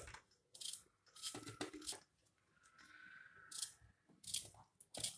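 Faint, irregular knife cuts as a small knife slices a peeled raw banana into rounds over a plate: a handful of short, crisp strokes a fraction of a second to a second apart.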